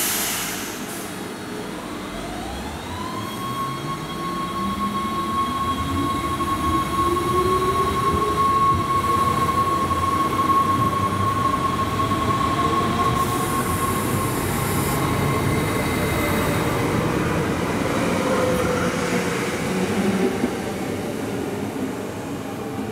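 NS SLT Sprinter electric multiple unit pulling away and accelerating past the platform. Its electric traction drive whines, one tone climbing quickly to a steady high pitch and another rising slowly, over growing rolling noise.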